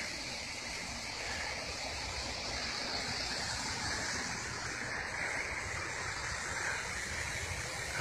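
A small waterfall: a steady, unbroken rush of falling water.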